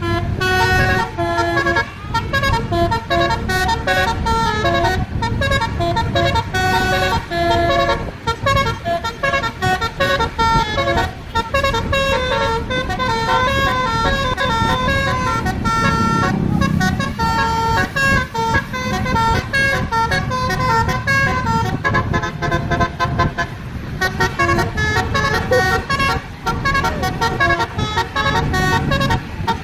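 Bus 'telolet' musical air horn (basuri type) playing a long tune of quickly stepping notes, with the bus's engine rumbling low underneath.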